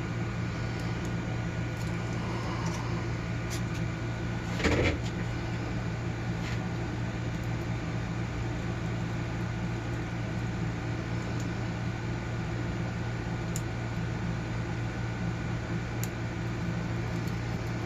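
Steady low background hum with a sharp click about five seconds in and a few faint ticks, from the small pins and springs of a dimple padlock's core being handled as it is taken apart.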